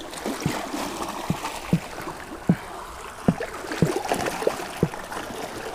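Redfish (red drum) drumming out of the water: a series of short, low knocks, irregularly spaced a few per second, made by its sonic muscles working against the swim bladder. Sea water washes over the jetty rocks underneath.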